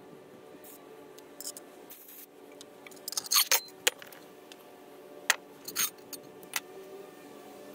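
Metal hand tools (screwdrivers and a combination wrench) clinking and being set down on a plastic truck bed liner: a cluster of clatters about three seconds in, then several single clinks.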